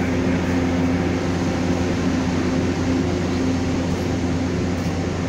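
Push-pull passenger coaches rolling slowly past, with a steady low machinery hum throughout and no distinct clatter or horn.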